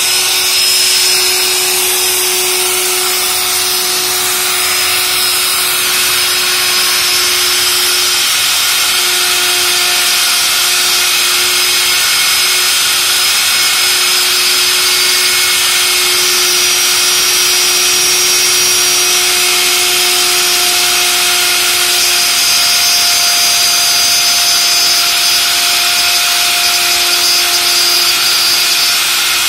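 DCA electric wood router running at full speed while its bit cuts freehand into a wooden board: a steady motor whine over the rasp of the cut.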